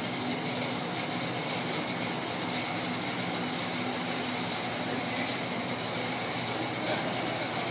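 O scale two-rail model train, a Santa Fe fast mail behind Samhongsa PA diesel locomotive models, running steadily along the track: a continuous rolling noise of wheels on rail with a steady high whine.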